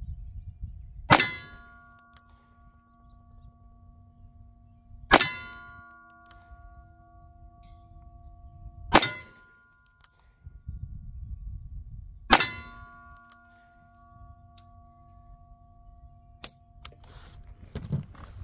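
A .38 Special +P revolver firing Federal 158-grain semi-wadcutter hollow points: four loud shots, about three to four seconds apart, each followed by a long metallic ringing. A lighter sharp crack and some rattling follow near the end.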